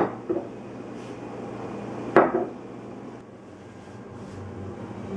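Two sharp knocks of glassware set down on a wooden table, about two seconds apart, each followed by a lighter tap.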